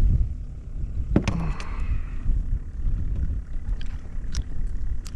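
Uneven low rumble with a few light knocks and clicks: outdoor noise aboard a fishing kayak, typical of wind buffeting the microphone and gear shifting on the hull.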